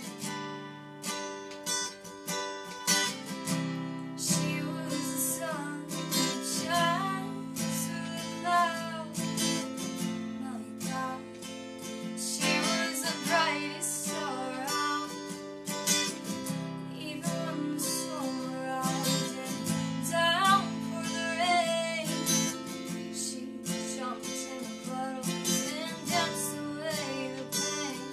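Acoustic guitar strummed in a steady rhythm, with a young woman singing over it from a few seconds in.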